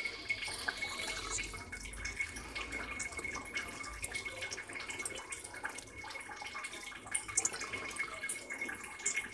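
Lemon juice dripping into water inside an electric kettle as half a lemon is squeezed by hand: faint, irregular drips and small splashes.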